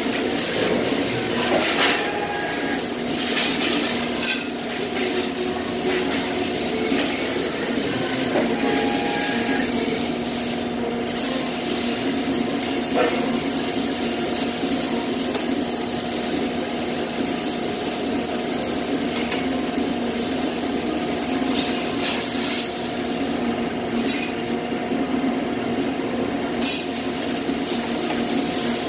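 Press brake (sheet-metal bending machine) running with a steady machine hum, broken by a few sharp clacks of metal parts being handled at the tooling, the loudest about four seconds in.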